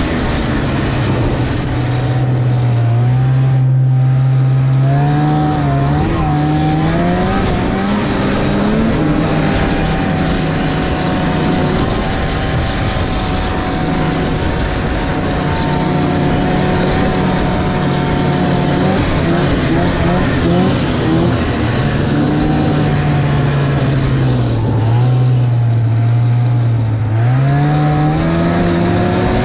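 Snowmobile engine running while riding. Its pitch climbs over the first several seconds, holds fairly steady, drops low about 25 seconds in, then climbs again near the end, over a steady rushing noise.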